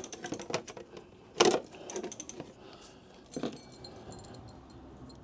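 Small clicks and clinks from handling e-bike cables and parts, with two louder knocks, about a second and a half in and again about three and a half seconds in.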